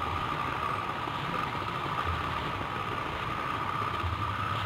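Wind buffeting the microphone in uneven low rumbles, under a steady high-pitched drone.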